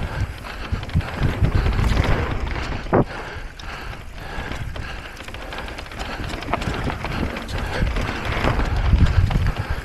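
Wind rumbling on the microphone and the clatter of an electric mountain bike ridden fast over rough ground, with many small clicks and knocks and a sharper knock about three seconds in.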